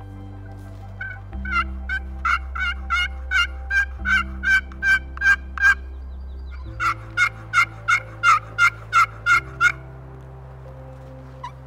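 A turkey yelping in two long runs of evenly spaced calls, about three a second, the first run growing louder, over background music with a slowly changing low tone.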